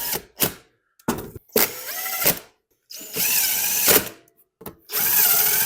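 Cordless drill/driver running in four short bursts of about a second each, its motor pitch rising and falling with each run as it drives fasteners home during reassembly of the engine.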